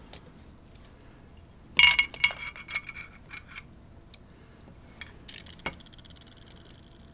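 Small metal lock parts clinking against a hard surface: a loud cluster of clinks about two seconds in that ring briefly, a few lighter ticks, then one more clink a little past five seconds with a thin ring that hangs on for over a second.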